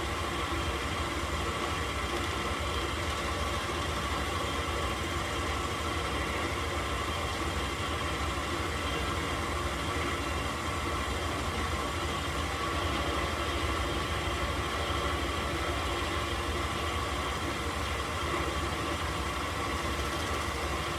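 A benchtop drill press runs steadily with a steady hum, spinning a leather edge burnisher while a leather strap's edge is held against it to slick the edge down.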